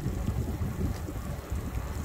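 Wind buffeting the microphone on a moving e-bike: an uneven low rumble that swells and dips from moment to moment.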